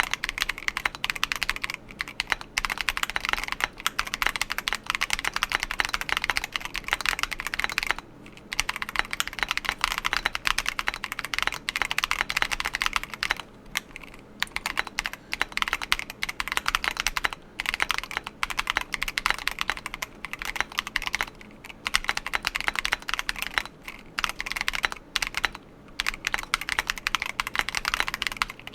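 Keychron Q1 Pro aluminium-cased mechanical keyboard, fitted with its stock foam, being typed on fast and continuously as a sound test: a dense run of keystrokes with short pauses every few seconds.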